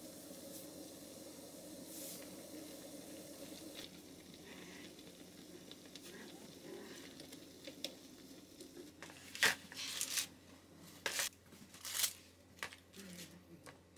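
A pot simmering on the stove with a soft, steady hiss. From about eight seconds in comes a run of sharp crinkling and rustling as things are handled in the kitchen.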